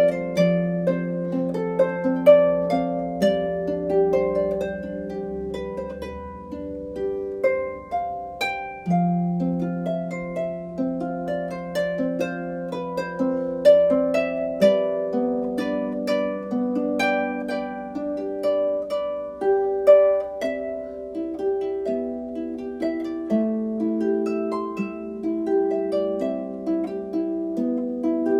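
Solo harp music: a steady run of plucked notes, each ringing on as the next is struck.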